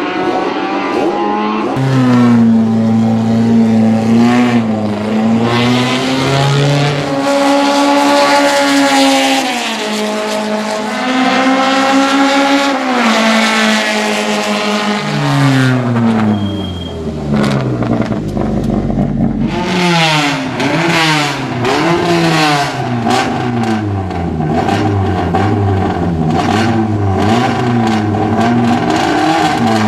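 Honda race car's engine revving hard, its pitch rising and falling, then sweeping down in the middle before a run of sharp throttle blips about once a second.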